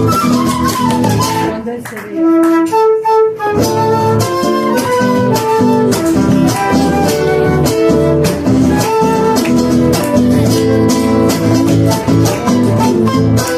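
Argentine folk music played live by a trio on guitars, bombo drum and transverse flutes. About two seconds in, the strumming and drum drop out briefly, leaving a few held single notes, then the whole group comes back in with a steady beat.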